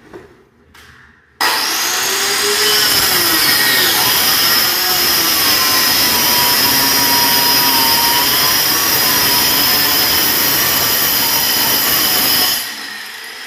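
Small handheld electric saw starting suddenly about a second and a half in and cutting through a plywood sheet, its whine wavering in pitch under the load, then stopping near the end.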